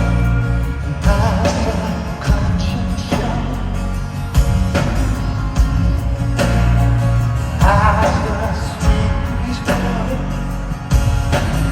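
Rock band playing live, with a man singing lead over guitars, bass and drums.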